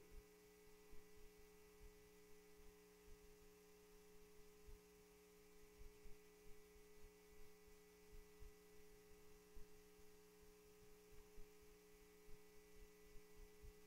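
Near silence: a faint, steady hum of several held tones in the room tone, with no speech.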